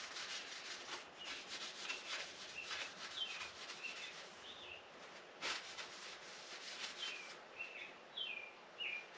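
Rag damp with rubbing alcohol wiped back and forth over an ABS plastic window louver: a quick run of scrubbing strokes, with short, high, falling squeaks here and there.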